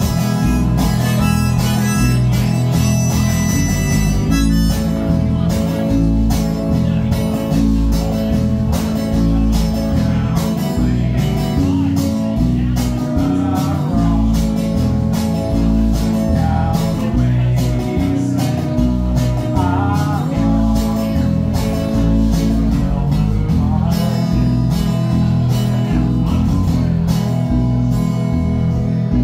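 Live acoustic music: a strummed acoustic guitar and a small plucked string instrument keep an even rhythm under a sustained lead line that bends in pitch now and then.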